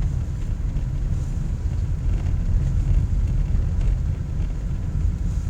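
Car driving, heard from inside the cabin: a steady low rumble of engine and tyres, with some wind buffeting the microphone.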